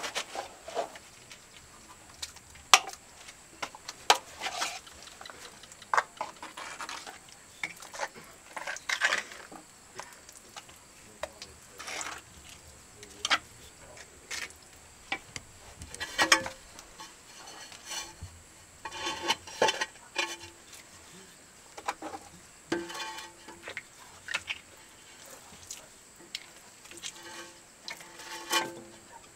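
Hand tools clinking, tapping and scraping on tile and mortar in tiling work. The sound comes as irregular sharp taps, a few louder than the rest, with some brief ringing.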